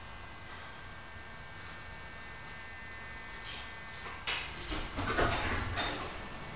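Old tram standing, its interior filled with a steady electrical hum and faint whine. About three and a half seconds in there is a click, then a run of loud clanks and a low rumble as the tram starts to move off.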